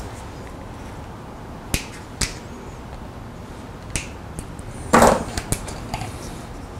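Small clicks and taps of hand tools and cable parts being picked up and set down on a workbench, a few separate ticks with one louder clatter about five seconds in.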